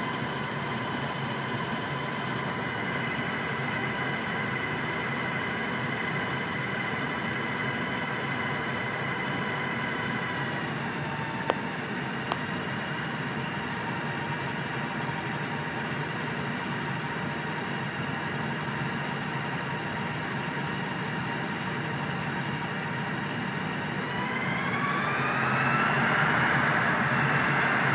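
John Deere 6430 tractor's diesel engine working under load on a PTO dynamometer, with a steady whine that sags slightly in pitch about ten seconds in, and two sharp clicks soon after. Near the end the load comes off and the engine revs up: the whine rises in pitch and the sound gets louder.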